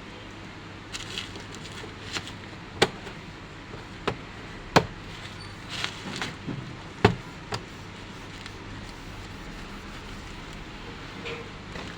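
Sharp clicks and knocks of hard plastic and metal parts being handled while an HP All-in-One PC is taken apart, several of them spread over a few seconds, with short rustles in between. A steady low hum runs underneath.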